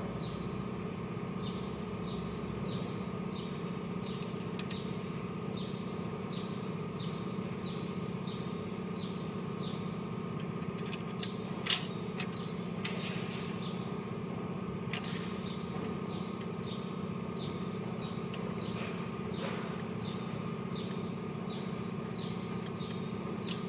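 Hand-tool work on a stationary engine's valve train: a feeler gauge and ring spanner on the rocker-arm adjusters, with one sharp metal clink about halfway through. Under it runs a steady hum, and a short high chirp repeats about every three quarters of a second.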